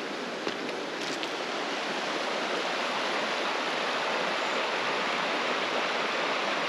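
Creek water running over a rocky riffle: a steady rushing and burbling that grows slightly louder in the first couple of seconds.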